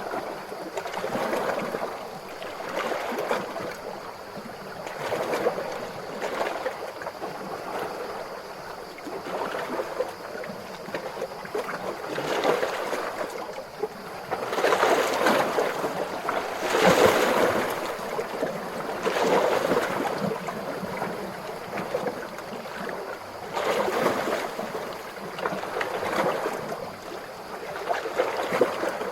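Calm ocean waves lapping, the wash swelling and ebbing every couple of seconds, somewhat fuller in the middle.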